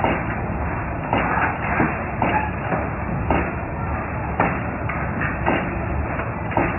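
AB42C automatic wire-o binding machine running, a steady mechanical din broken by sharp clacks about once a second, some coming in quick pairs.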